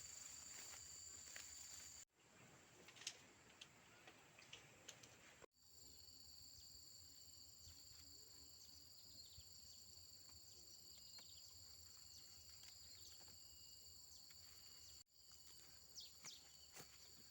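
Faint insect chorus: a steady, high-pitched drone at two pitches, with scattered light clicks and rustles. The drone drops out for about three seconds a couple of seconds in, then returns.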